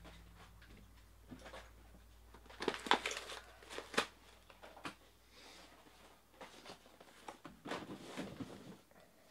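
Scattered crinkling and light clicks of card packaging being handled, with a few sharper clicks about three and four seconds in and another cluster near the end.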